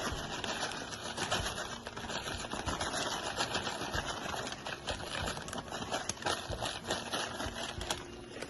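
A spoon stirring thick cream sauce in a pan, with rapid scraping and clicking against the pan that stops about eight seconds in.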